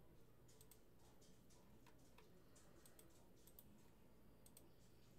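Faint, irregular clicks of a computer mouse over a low steady hum.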